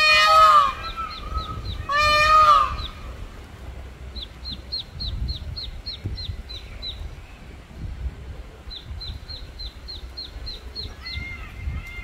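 Waterfowl honking loudly twice in the first three seconds, with a duckling peeping in quick runs of short, high notes for most of the rest. Softer honks come back near the end.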